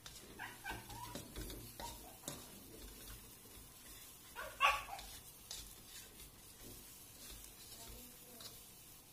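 A dog yipping and whimpering in a few short, high calls in the first second or so, then giving one louder bark about four and a half seconds in.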